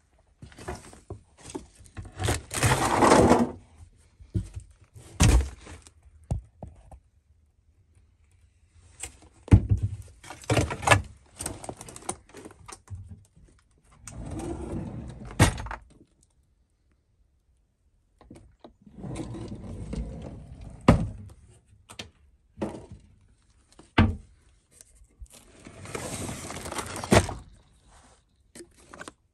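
Junk and debris being handled and shifted: bursts of rustling and scraping with sharp knocks, thunks and small metal clinks, separated by short pauses.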